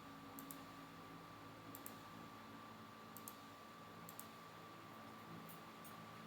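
Faint computer mouse clicks, several in quick pairs like double-clicks, spaced a second or so apart.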